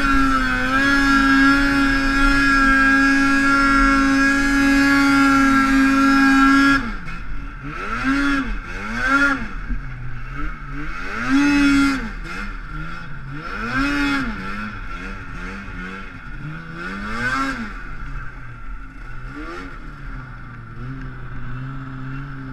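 2015 Arctic Cat snowmobile with a Starting Line Products stage 3 kit, its engine holding a steady high note, then about seven seconds in dropping off into a series of rising and falling throttle blips, settling to a lower steady note near the end.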